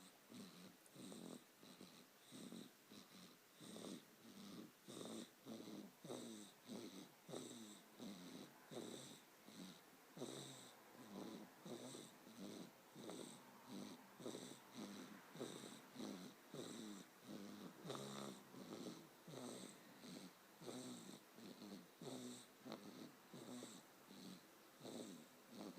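Snoring: fast, even, short snores, about two a second, each with a faint whistling hiss.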